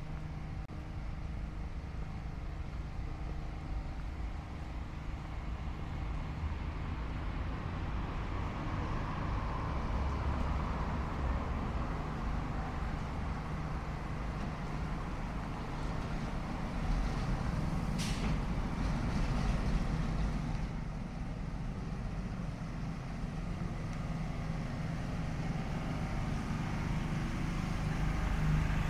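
Road traffic on a city avenue: engines of cars and heavier vehicles rumbling steadily as they pass, swelling a couple of times. A brief sharp sound cuts through once, about eighteen seconds in.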